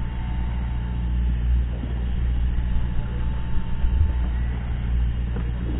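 Steady low drone of a fishing boat's motor running.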